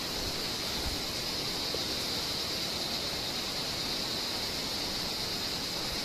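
Steady chorus of night insects, an unbroken high shrill drone over an even hiss.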